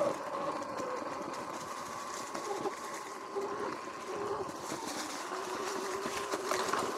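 Sur-Ron X electric dirt bike under way: its motor whine wavers in pitch as the speed changes, over a steady rush of wind and tyre noise.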